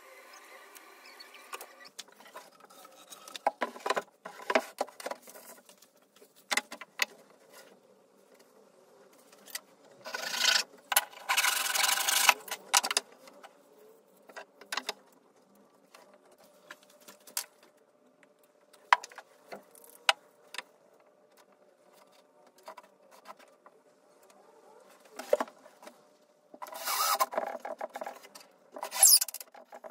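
Hand work on wooden parts: scattered knocks and clicks of wood, with two spells of rubbing on wood, one about ten seconds in and one near the end.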